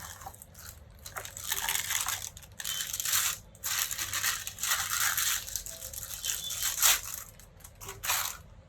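Plastic packaging crinkling and rustling in repeated bursts of about a second each, with a few sharp clicks, as a boxed item is unwrapped.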